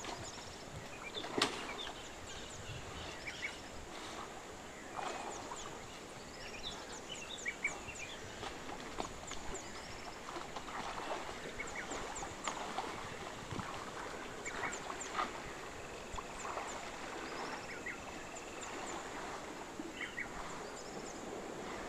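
Rainforest riverbank ambience: many short bird chirps and whistles, with a thin steady high tone underneath. A single sharp click comes about a second and a half in.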